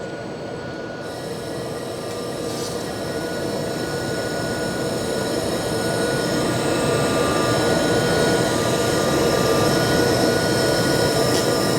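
LightWELD 1500 XR laser cleaning stainless steel weld seams: a steady hiss with a thin high whine that comes in about a second in and grows slowly louder.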